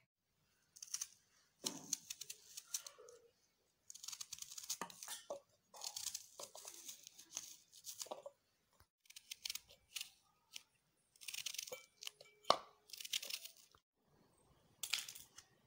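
Raw onions being cut by hand with a small knife, a series of short cutting sounds each under a second, with pauses between and an occasional sharp click as pieces drop into a steel mixer jar.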